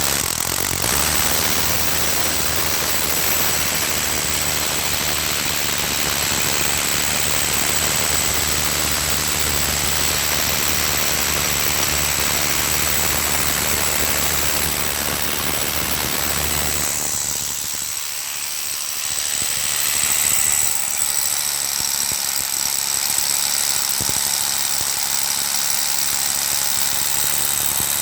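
Electric concrete drill's brushed motor running free at speed with a steady high whine; the motor's carbon brushes are sparking. About two-thirds of the way through, the low hum drops out and the sound dips briefly, then picks up again.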